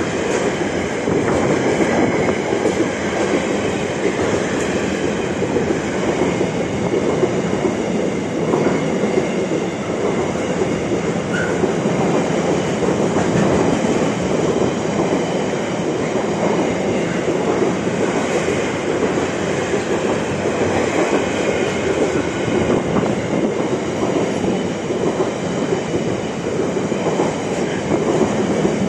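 Container wagons of a freight train passing close by: a steady rumble and clatter of steel wheels on the rails.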